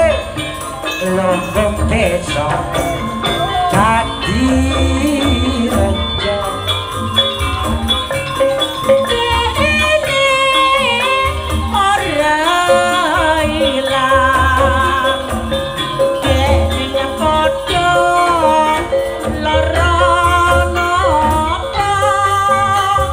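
Live campursari tayuban music: a female singer sings a wavering, ornamented melody over a band with repeated deep drum beats.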